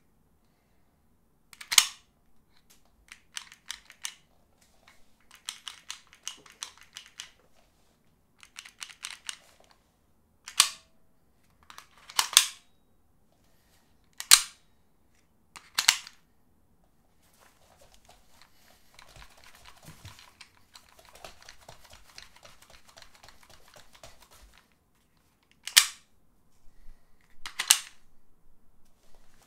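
Airsoft pistol being drawn from and snapped back into a CTM AAP01 nylon speed holster: about seven sharp plastic clicks as the pistol seats and releases, with lighter rattling clicks between them. A soft rustling runs through the middle stretch.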